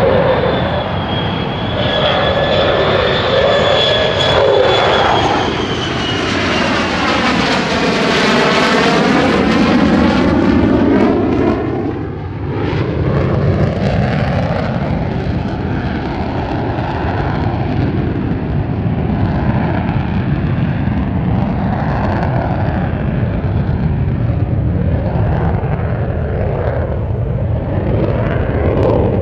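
Lockheed Martin F-35A Lightning II's F135 afterburning turbofan, a high whine over a loud roar during a slow, gear-down pass. About eight seconds in, a sweeping, phasing whoosh comes as it passes overhead, then a steady roar as it climbs away on afterburner.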